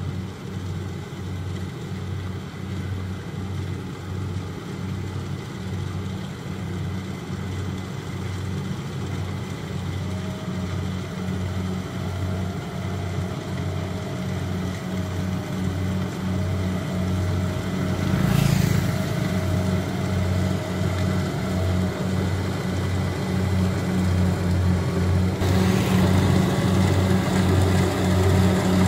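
Rice combine harvester's diesel engine running under load as it cuts, with an even low throb, growing louder as the machine comes closer. A faint whine runs through the middle, and there is a brief rushing burst about 18 seconds in.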